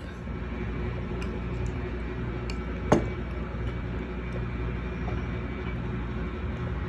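A metal spoon scooping food from a ceramic bowl onto a plate, with one sharp clink about three seconds in, over a steady low background hum.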